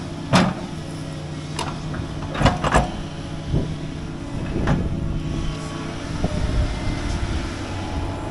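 Excavator's diesel engine running steadily while its bucket digs into a bank of earth and lifts away, with about six sharp knocks from the bucket and arm in the first five seconds, two of them close together.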